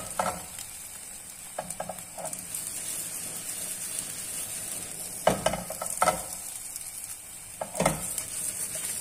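Vegetable crêpe sizzling steadily in a nonstick frying pan on a gas burner. A few sharp knocks and scrapes come as the pan is turned on the grate, the loudest about five seconds in and again near the end.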